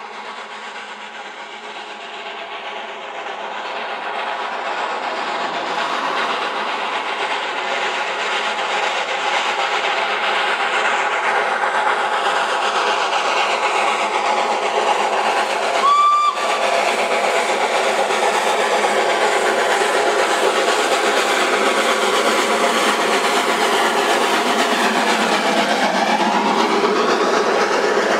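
Steam locomotive approaching with its train, the running noise growing louder over the first several seconds and then holding steady. One short whistle blast comes about halfway through, and the coaches run past near the end.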